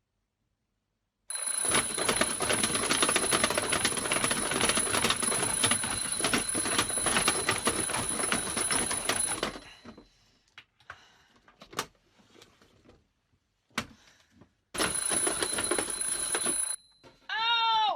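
Bell alarm clock ringing loudly with rapid hammer strikes for about eight seconds, stopping, then ringing again for about two seconds after a few faint clicks. A short rising-and-falling cry follows near the end.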